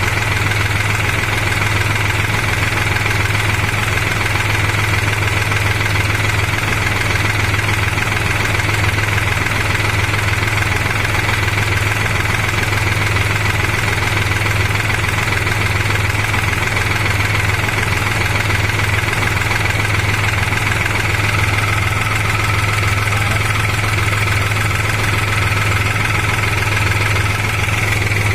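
New Holland TT4.55 tractor's diesel engine running steadily at an even speed, with a faint steady tone joining in about three-quarters of the way through.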